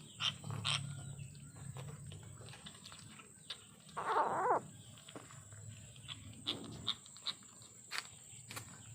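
Kitten growling low over its food, with one short yowl about four seconds in and scattered sharp clicks.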